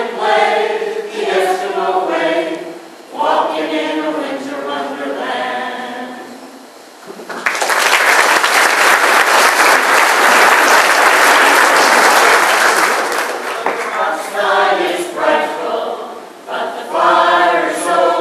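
A mixed choir of carolers singing; their song ends about seven seconds in, the audience applauds for about six seconds, and the choir then starts singing again.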